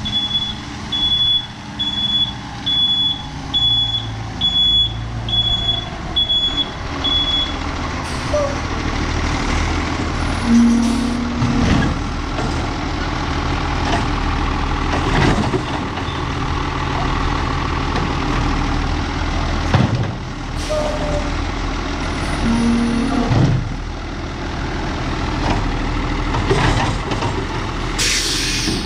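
Autocar Labrie Automizer garbage truck backing up with its reversing alarm beeping about every half second, then running with its engine steady and several sharp knocks and clanks. A short loud hiss of air comes near the end.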